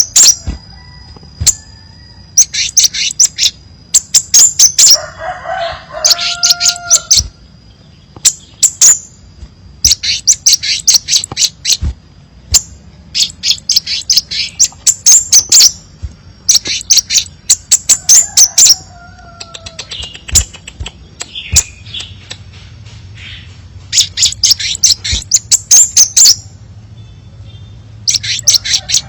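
Crimson sunbird song: bursts of rapid, very high-pitched twittering chirps, each about a second long and repeated every couple of seconds, with a few lower, drawn-out calls in between.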